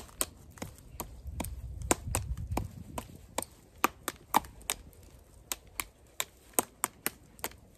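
Irregular sharp clicks and snaps, about three a second, made as a person moves through fast knife-slashing motions. A low rumble comes in about a second and a half in and lasts about a second.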